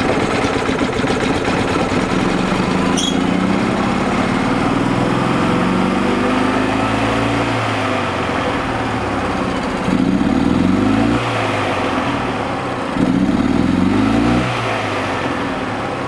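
2002 EZGO TXT gas golf cart's single-cylinder four-stroke engine turning over and running, speeding up briefly twice, about ten and thirteen seconds in. It sounds a little as if it is getting too much fuel, which the mechanic takes for a valve problem.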